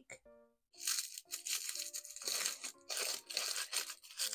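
Crinkly pink paper wrapper being torn open and unwrapped from a tiny jar, crackling in quick bursts that start about half a second in, over soft background music.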